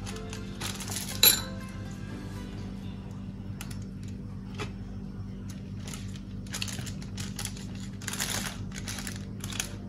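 Crumpled aluminium foil crinkling and rustling as seasoned chicken wings are pressed and turned on it by hand. There is one sharp crinkle about a second in, then several more bursts of rustling in the second half.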